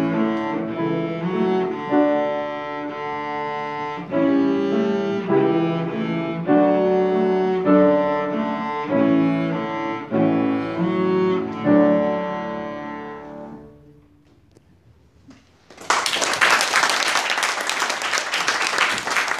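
Cello and grand piano duet playing the closing bars of a piece, the last chord dying away a little past two-thirds through. After a second or two of quiet, the audience breaks into applause.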